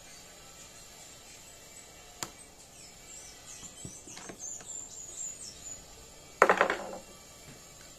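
Hand tools and small parts being handled on an industrial buttonhole machine during disassembly: a sharp click about two seconds in, then a short, loud clatter about six and a half seconds in. Small birds chirp in the background.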